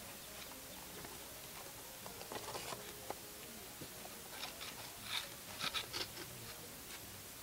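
Faint rustling, scraping and small clicks of hands handling a cardboard model mortar, in a short cluster about two and a half seconds in and a longer one from about four and a half to six seconds.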